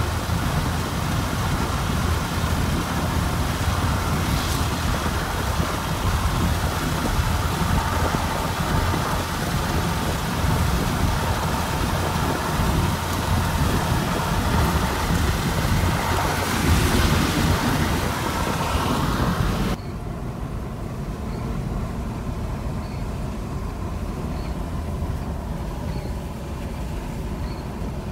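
Road and wind noise from a moving vehicle, heard from inside: a steady rushing noise over a low rumble. About twenty seconds in it changes abruptly to a quieter, duller rush.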